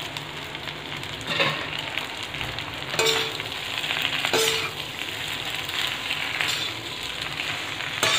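Boiled macaroni with chicken, egg and vegetables sizzling in a hot kadai, with a steady frying hiss. A spatula scrapes and stirs through the pan in a few sharp strokes.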